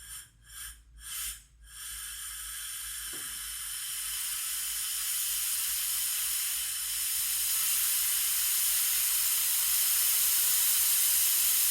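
Compressed air hissing out of a Stanley 24-litre compressor's tank through an air nozzle on its hose: a few short blasts, then a continuous hiss from about two seconds in that slowly grows louder. The tank is being bled down on purpose to find the pressure switch's cut-in point.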